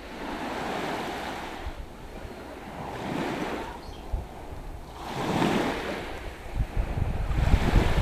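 Small waves lapping on a sandy beach, each one washing in and fading about every two and a half seconds. Wind rumbles on the microphone in the last second or two.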